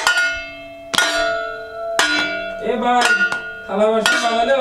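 Metal plate struck as a makeshift gong about once a second, each hit ringing on like a bell. A voice starts singing along from a little past halfway.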